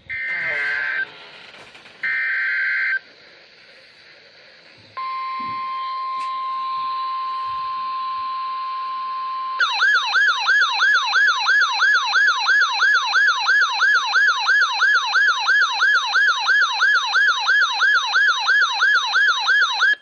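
RadioShack handheld weather radio receiving a NOAA Weather Radio severe thunderstorm warning: two short buzzing SAME data bursts, then the steady 1050 Hz warning alarm tone, then from about halfway the radio's own loud warbling alert siren, about three sweeps a second.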